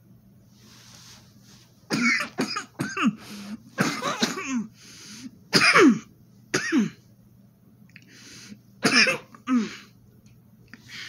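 A woman coughing repeatedly on a mouthful of dry cornstarch powder, about eight coughs in several bouts after a breathy start.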